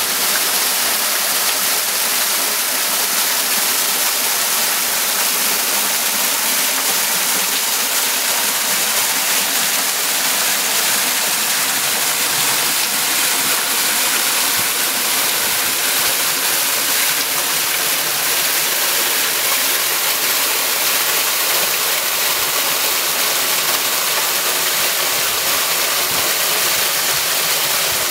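Water pouring from a swimming pool's cascade feature and splashing into the pool: a steady rush of falling water.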